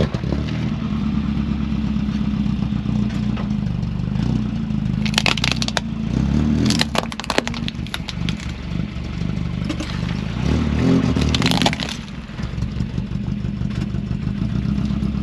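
Battery-powered toy RC cars driving, their motors giving a steady low drone that surges now and then. Scraping and clattering bursts about five, seven and eleven seconds in, as the cars knock and scrape against each other.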